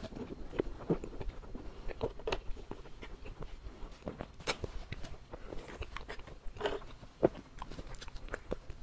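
Close-miked eating sounds: a person biting and chewing a soft pastry, with many short, irregular wet mouth clicks and smacks. One sharper click comes about seven seconds in.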